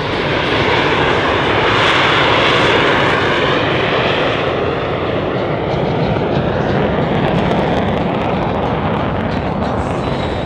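F-16 fighter jet's engine running at high power as it climbs away, a loud, even rushing noise that swells to its loudest about two seconds in and then holds.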